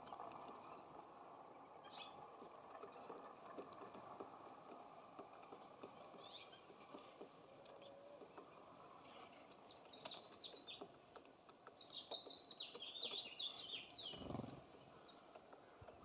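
Small songbirds at a feeder chirping, with two quick runs of short high notes in the second half, over a faint steady rushing background and a few light taps.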